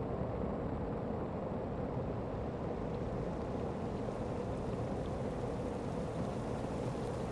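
Steady rushing noise with no distinct events or tones.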